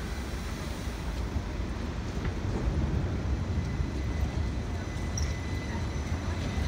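Class 399 Citylink tram-train pulling into a street-running tram stop: a low rumble of wheels on rail with a faint steady whine above it, growing a little louder about halfway through as it draws alongside.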